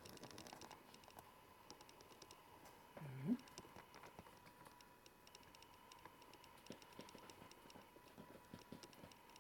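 Near silence with faint irregular clicking and a faint steady high hum. A brief rising sound comes about three seconds in.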